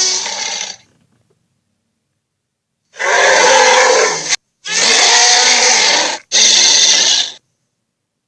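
Dinosaur roar sound effects: the end of one roar fading out, a pause of about two seconds, then three loud roars in quick succession, each a second or so long.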